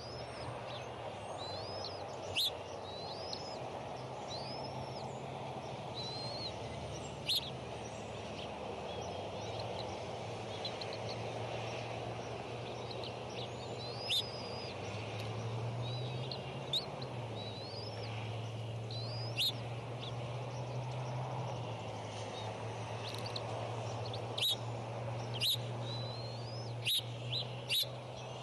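Birds chirping: many short, high rising-and-falling chirps and sharp peeps at irregular moments, more of them near the end, over a steady outdoor hiss and a low hum.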